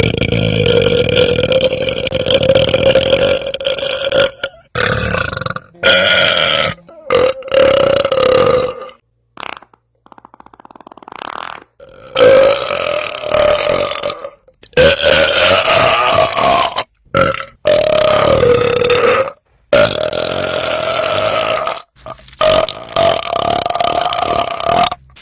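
A run of about ten long, drawn-out belches, one after another with abrupt cuts between them, each held at a fairly steady pitch for one to four seconds; one about ten seconds in is fainter.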